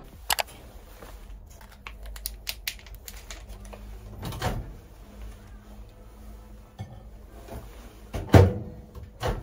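Scattered small clicks and taps of objects being handled on a table, with two louder knocks near the end, over a faint steady low hum.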